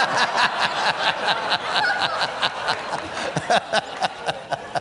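Audience laughter: a large crowd laughing together, loud at first and dying down near the end.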